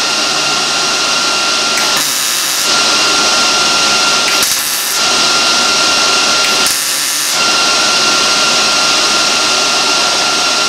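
Welding on the lower edge of a steel grille shell: a steady hissing crackle, broken by three short pauses about two, four and a half and seven seconds in.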